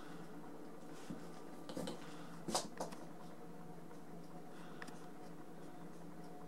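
Quiet room tone with a steady low hum, broken by a few soft clicks and rustles between about one and three seconds in, the loudest about two and a half seconds in.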